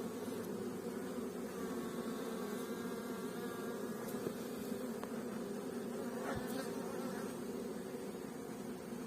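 Many honeybees buzzing in a dense, steady hum around the hives, with a single low knock about six seconds in.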